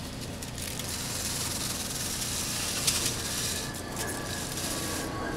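Air-driven paint spray gun spraying a coat of clear: a steady hiss of spray that eases off just before four seconds in, with one sharp click near the three-second mark.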